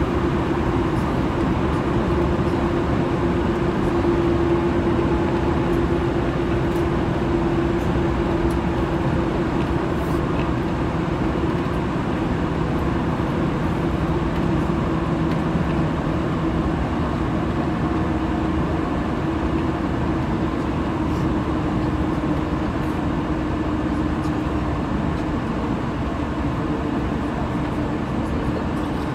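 Running noise inside a JR 185 series electric train: a steady rumble of wheels on rail with a humming tone that sinks slowly in pitch.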